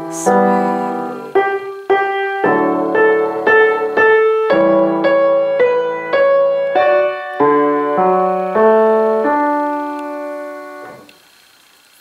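Kawai grand piano played with both hands: a melody of struck notes over bass chords, closing on a held chord that dies away about eleven seconds in.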